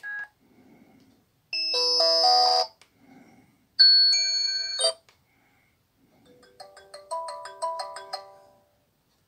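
A Jinga push-button phone's loudspeaker plays ringtone previews as its ringtone list is scrolled. A short key beep comes first, then a brief electronic chord about a second and a half in, another stepped tone near four seconds, and a melody of quick notes from about six and a half seconds.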